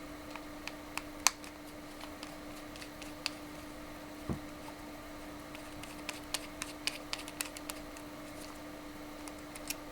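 Small clicks and taps of a Torx screwdriver and tiny screws against a cell phone's plastic housing as the screws are backed out, one sharper click about a second in and a quick run of clicks past the middle, over a steady low hum.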